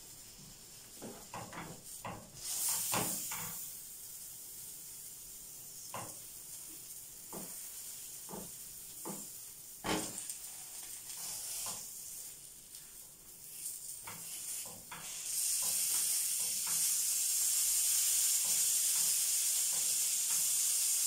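Oiled hawawshi (bread stuffed with minced meat) sizzling in a nonstick frying pan, with a metal spatula knocking and scraping against the pan about a dozen times. About two-thirds of the way through, the sizzle jumps much louder and stays loud.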